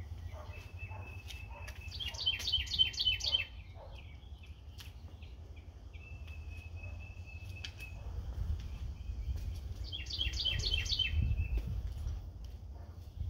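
A songbird singing: a held high whistle that breaks into a quick run of about seven sharp notes, once about two seconds in and again about ten seconds in, with a lone held whistle between. A steady low rumble runs underneath.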